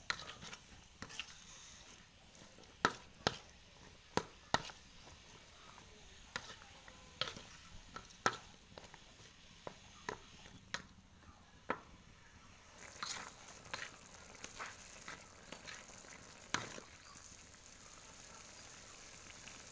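Spatula scraping and knocking against a wok while baby corn and tofu are stir-fried, in irregular strokes about one to two seconds apart, over a faint sizzle. The strokes come closer together for a few seconds near the end.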